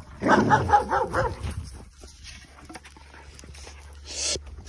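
German Shepherd dogs barking: a quick run of about six short barks in the first second and a half, then a short breathy rush of noise near the end.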